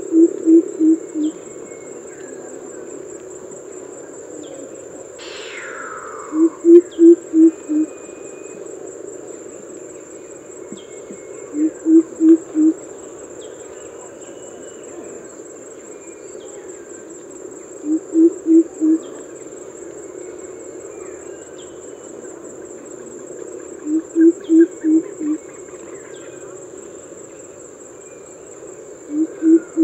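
Greater coucal giving its deep coop-coop-coop call: a series of four or five low hoots, repeated six times about every six seconds. A steady high insect drone runs underneath, and a single falling call sweeps down about five seconds in.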